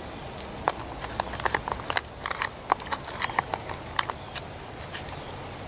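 A long-handled plastic MRE spoon stirring chicken chunks and buffalo hot sauce inside the food pouch: irregular clicks and scrapes of the spoon with crinkling of the pouch.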